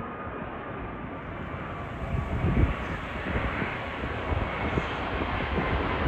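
Boeing 777 jet airliner on its landing approach, coming in low overhead. The jet engine noise is a steady rush that grows gradually louder as the aircraft nears.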